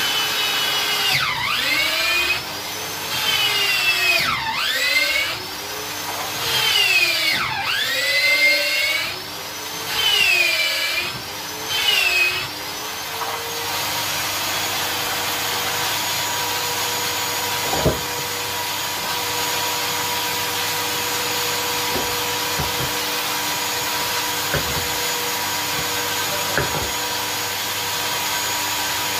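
Electric drill with a long bit boring into a wooden pillar. Through the first half its motor pitch dips and recovers again and again as the bit takes load, then it runs steadily with a few light knocks.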